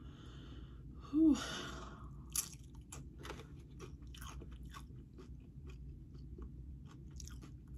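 Close-up chewing of tortilla chips from nachos: a run of crisp, irregular crunches and crackles. A breathy "whew" exhale about a second in is the loudest moment.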